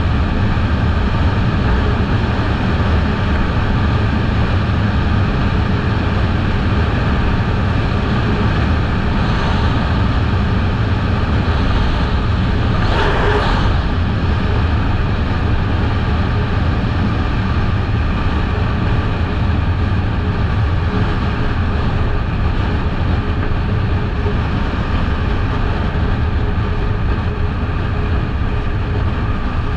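Kawasaki Eliminator 500's parallel-twin engine running steadily at road speed under loud wind and road rush. A brief louder rush about halfway through.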